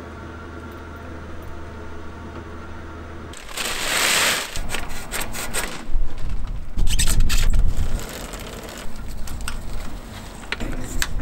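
A steady mechanical hum with a few held tones, cut off about three seconds in. Then a loud rustle of a bag being pulled off a bicycle, followed by clicks and rattles of the bike being handled and its wheel turned, with low rumbles in between.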